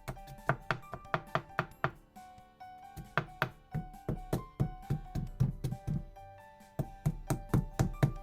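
Background music with held notes over a run of sharp knocks, about three a second, easing off briefly twice.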